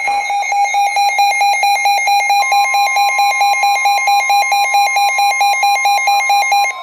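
Emergency Alert System alarm tone: a loud, rapid electronic beeping with a buzzy edge, joined about two and a half seconds in by a steady higher tone, all cutting off just before the end.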